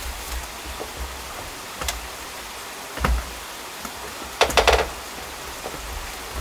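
A few sharp knocks and taps as painting tools are handled at a plastic paint bucket, the loudest a quick run of knocks about four and a half seconds in, over a steady background hiss.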